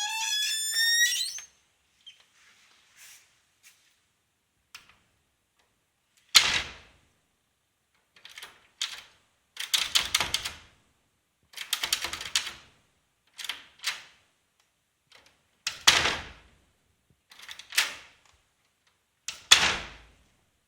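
Wooden door hinge creaking in a rising squeal for about the first second. Later comes a run of wooden knocks, bangs and rattles every second or two, from the door and its fittings, with the loudest slams about six, sixteen and nineteen and a half seconds in.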